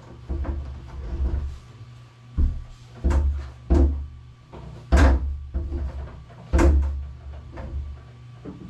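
Irregular wooden knocks and thumps, about five sharp ones with heavy low bumps between, from a wood-top workbench and its parts being moved and set in place.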